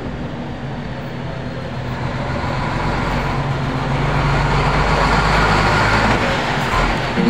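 Motor vehicle engine and road noise, a steady low drone that grows louder over several seconds.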